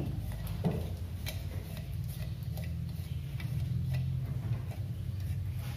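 Light, irregular clicks and taps of a wooden spatula against a glass chopper bowl as ground spice paste is scraped out into a wok, over a steady low hum.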